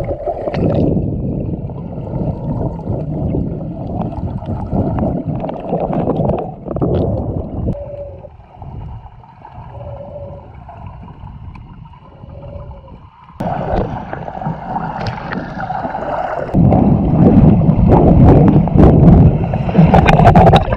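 Muffled sloshing and rumbling of water around a camera held under the surface while snorkelling, quieter through the middle, then suddenly louder and fuller about two-thirds of the way through.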